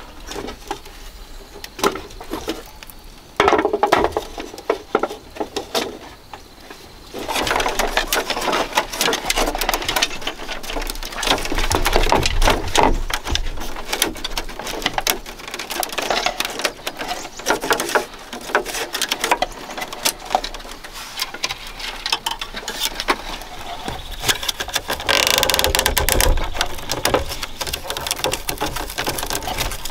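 Thin split-bamboo strips clicking, crackling and rustling as they are threaded and pulled tight through the edge of a woven bamboo basket to bind on its rim hoop. Sparse at first, then a dense run of small clicks from about seven seconds in.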